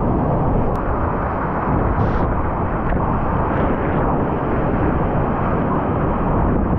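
Whitewater rapids at high flow, a loud, steady rushing roar of churning water heard from a kayak, with a short brighter hiss about two seconds in.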